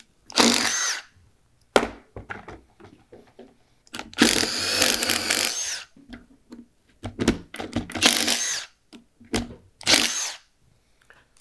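Milwaukee M18 Fuel Gen 3 One-Key cordless impact driver running in repeated bursts, one about two seconds long, as it bores a 1 3/8-inch self-feeding spade bit into a wooden beam, with short clicks between the runs. The repaired collet fails to hold the bit, which pulls out and is left standing in the wood.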